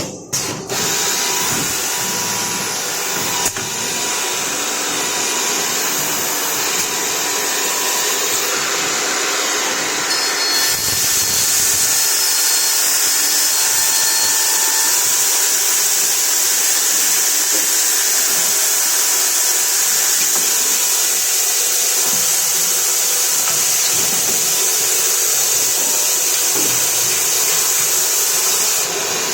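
HICAS HC3090M6SL six-sided CNC drilling machine running, its high-speed spindles and dust extraction giving a loud, steady whine and hiss that starts suddenly and gets a little louder and brighter about ten seconds in.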